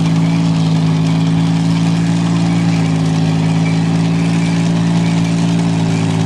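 Vehicle engine running hard at steady revs under heavy load, pulling in a tug of war. One loud, even drone with almost no change in pitch.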